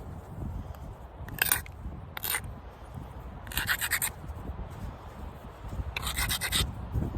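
Four short bouts of rasping scrapes, hard stone and bone rubbed against each other while flintknapping a stone blank, the last two longer than the first two.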